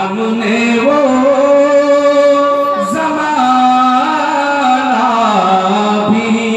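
A man singing a naat, an Urdu devotional poem in praise of the Prophet Muhammad, into a microphone. He holds long notes with wavering ornaments, and the melody steps to a new pitch about three seconds in.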